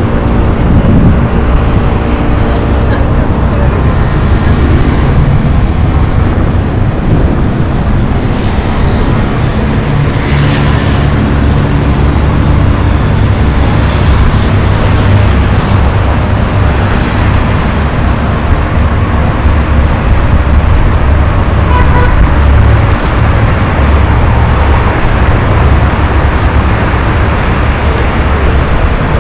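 Heavy city road traffic: cars, taxis and buses running steadily on a multi-lane avenue, a loud continuous wash of engine and tyre noise with a strong low drone.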